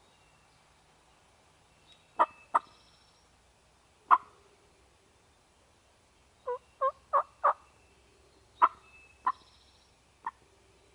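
Turkey calls: scattered short, sharp notes, then a run of four quick yelps about two-thirds of the way through, and a few more single notes near the end.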